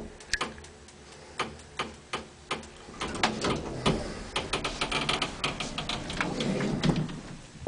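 Old elevator clicking, then rattling and clattering for about four seconds as its door is opened.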